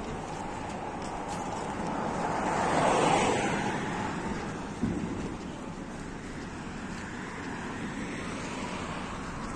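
Street noise with wind on the microphone: a car drives past, its noise swelling and fading about three seconds in, and a short knock follows about five seconds in.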